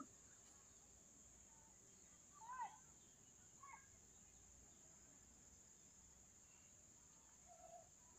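Faint, steady, high-pitched chirring of crickets or other insects, with a few short bird calls about two and a half seconds and three and a half seconds in, and a softer one near the end.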